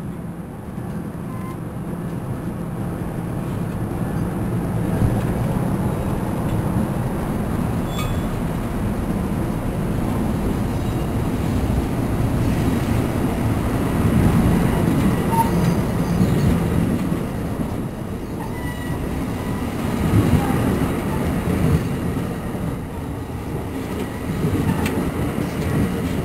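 NJ Transit Multilevel double-deck coaches rolling past close by as the train pulls into the station, a steady rumble of wheels on rail that grows louder over the first half and then holds with small swells.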